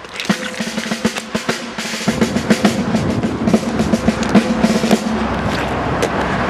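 Military snare drum playing a roll with many sharp accented strikes.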